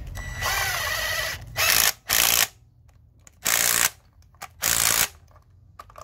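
Cordless power driver with a spark-plug socket running in short bursts as it threads a new spark plug into a 2009 Hyundai Avante HD's cylinder head. It gives one run of about a second, then four quick bursts.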